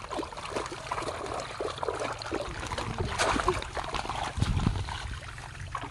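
Shallow muddy pond water splashing and sloshing irregularly as hands grope through the mud and grass for fish, with a few heavier sloshes in the second half.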